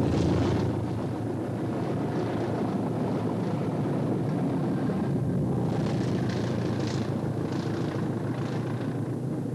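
Southern Region diesel-electric multiple unit running past, a steady engine rumble mixed with wheel and rail noise that begins suddenly.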